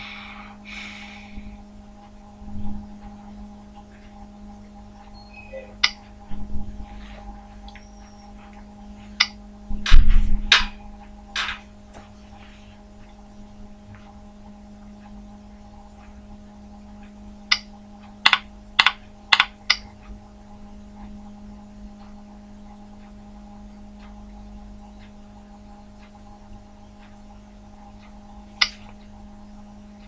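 Scattered sharp clicks of a computer mouse and keyboard over a steady electrical hum, with a run of five quick keystrokes a little past the middle. A heavier thump about a third of the way in is the loudest sound.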